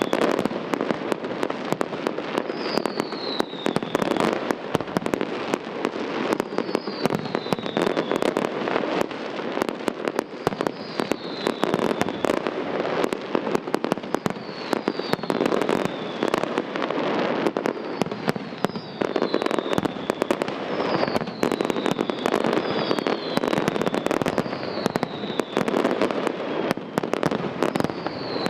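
Fireworks display: a dense, continuous run of bangs and crackling from bursting aerial shells. A short, high falling whistle recurs every second or so over the crackle.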